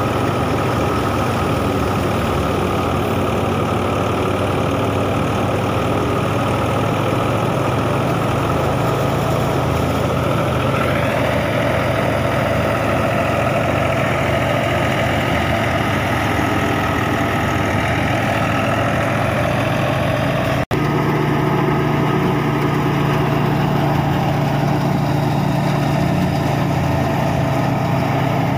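Tractor-driven wheat thresher running steadily, a constant drone of the Massey Ferguson 260 tractor's engine and the thresher's drum as straw is fed in. The tone shifts slightly about a third of the way in. The sound cuts out for an instant about two-thirds through.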